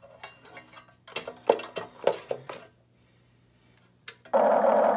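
Clicking and clattering as a LiPo battery is connected and handled inside an RC excavator's body, then a toggle-switch click about four seconds in. Right after it, the excavator powers up with a loud, steady, engine-like hum with a high whine.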